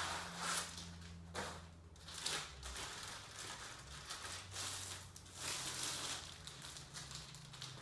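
Packaging crinkling and rustling in uneven bursts as a cricket bat is handled and unwrapped, over a steady low hum.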